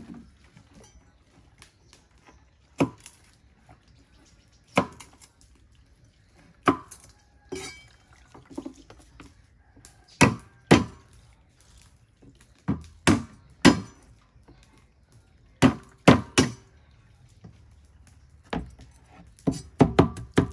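Sharp knocks on a wooden chopping board at irregular intervals, singly or in quick runs of two or three.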